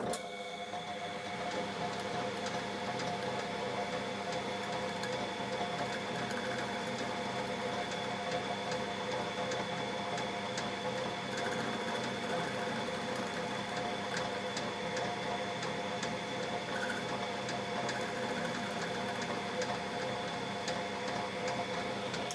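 Small metal lathe running steadily, turning a home-welded bolt head held in its chuck, with faint light ticks from the cutting.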